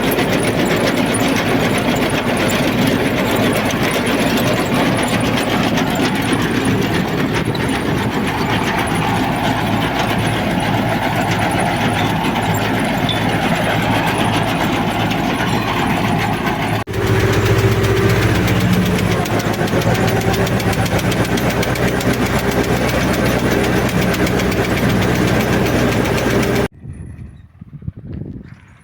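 Tractor engine running during potato lifting, a dense, noisy clatter of machinery. About 17 s in it changes abruptly to a steadier engine hum, which cuts off near the end.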